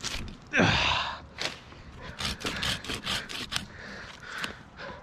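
A loud, breathy exhale, then a run of short, irregular rustles and light knocks of branches.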